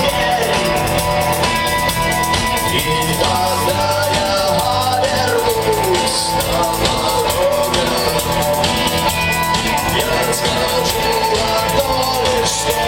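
Rock band playing live at steady full volume: electric guitars and drum kit, with a melody line wavering above them.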